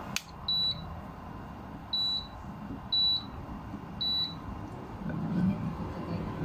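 Induction cooker's control panel giving four short, high beeps about a second apart as its touch buttons are pressed.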